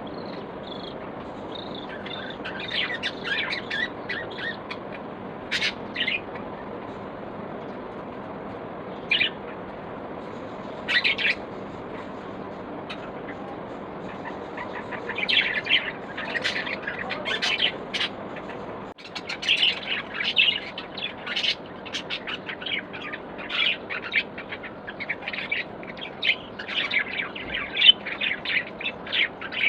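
Pet budgerigars chirping in short, high chirps, scattered at first and then turning into busy chatter about halfway through, over a steady low background noise.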